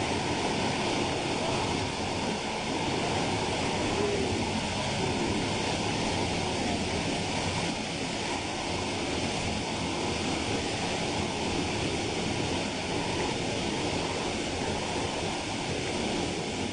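Steady rushing of fast-running water, loud and even throughout.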